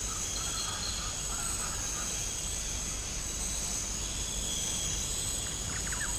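Rainforest ambience: insects shrilling steadily in high, even tones over a low rumble, with a few short chirps near the end.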